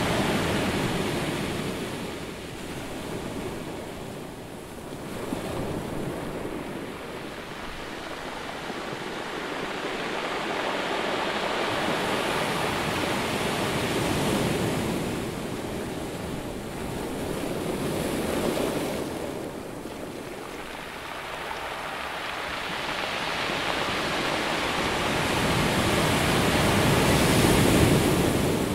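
Ocean surf breaking and washing up a sandy beach, a steady rush that swells and ebbs in slow surges every few seconds and is loudest near the end.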